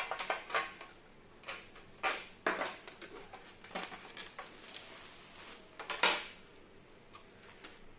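Handling noise from a plastic digital wall clock housing being lifted and opened by hand: scattered knocks, scrapes and rustles, the loudest near the start, about two seconds in and about six seconds in.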